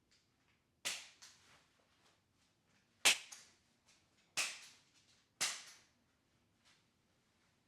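Four sharp snapping smacks at uneven intervals, the second the loudest, each followed by a fainter second hit as it dies away.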